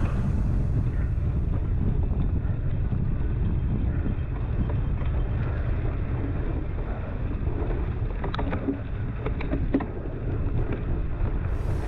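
Wind buffeting a GoPro mounted on a cyclocross bike, with a steady low rumble of the bike rolling over rough ground. A cluster of short rattles and knocks comes a little past the middle as the bike goes over bumps.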